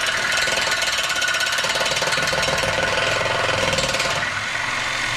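Reciprocating saw (Sawzall) cutting through a steel exhaust pipe: a loud, steady, fast rasping chatter of the blade stroking through the metal.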